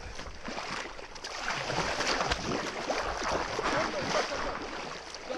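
Pond water splashing and sloshing close by, with bubbling, as a freshly speared tilapia thrashes at the surface and someone wades through the water.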